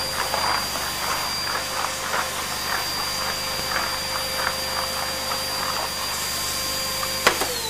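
Canister vacuum cleaner running with a steady whine as the floor head is pushed back and forth over the floor and rug. Near the end it is switched off with a click, and the motor's whine falls in pitch as it winds down.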